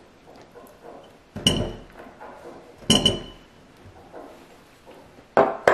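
Clinks of a small dish and spatula knocking against a glass mixing bowl while mayonnaise is scraped in. There are two sharp clinks with a brief ring, about a second and a half apart, and another knock near the end.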